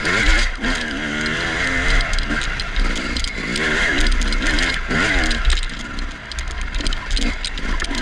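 Dirt bike engine revving up and down again and again as the rider accelerates and backs off through tight trail turns. A loose part rattles constantly near the camera, and mud on the camera makes the sound muffled and odd.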